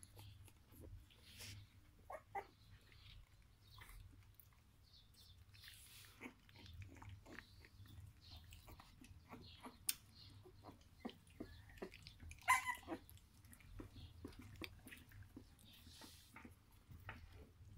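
Seventeen-day-old kelpie puppies squeaking and grunting faintly as they nurse and crawl, amid soft clicks and rustles; a short, higher squeak about two seconds in and a louder one about two-thirds of the way through.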